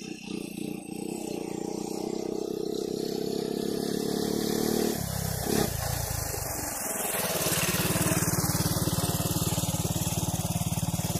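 Honda ATC 125M three-wheeler's single-cylinder four-stroke engine running as it is ridden toward the camera, growing steadily louder. Its note drops about five seconds in, and from about seven seconds on it runs loud and steady close by.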